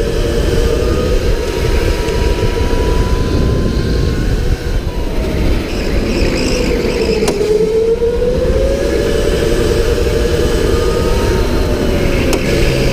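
Electric go-kart motor whining at speed, its pitch rising and falling with the kart's speed through the corners, over a steady low rumble of tyres and vibration. There are two sharp clicks, about seven and twelve seconds in.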